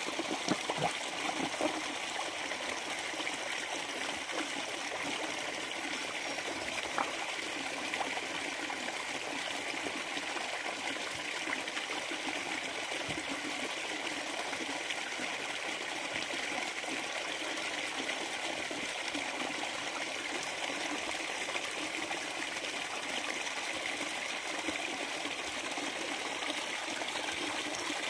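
Steady trickle of running water at a koi pond. In the first couple of seconds there are a few sharp little slurps of koi feeding at the surface.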